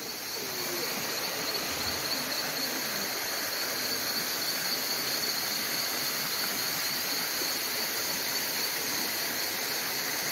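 A steady chorus of crickets: a continuous high-pitched trill over an even hiss.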